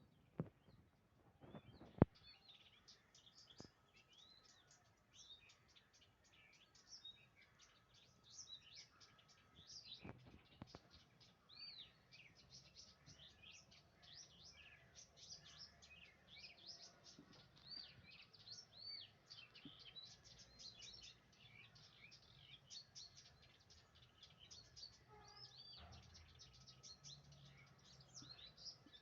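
Many small birds chirping and twittering continuously, short quick overlapping chirps with no pause. A couple of sharp clicks near the start.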